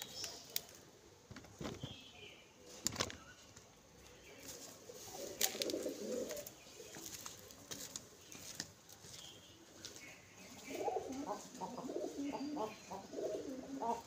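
Domestic pigeons cooing: a short burst of low cooing about five seconds in, then steady, overlapping cooing from about ten seconds on. A few sharp taps come in the first three seconds.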